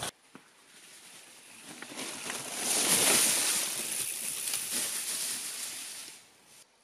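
Pivot Trail 429 mountain bike rolling past close by on a trail thick with dry fallen leaves, its tyres crunching through the leaves. The sound builds to its loudest about three seconds in and fades as the bike rides away.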